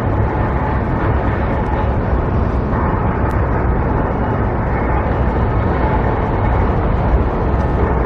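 Steady, loud low rumble of outdoor background noise, with no single event standing out.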